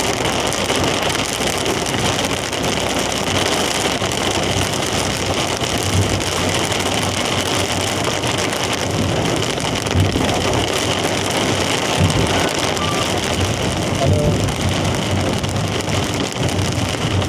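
Heavy rain on a moving vehicle, steady and even, mixed with the vehicle's road noise from tyres on a wet road.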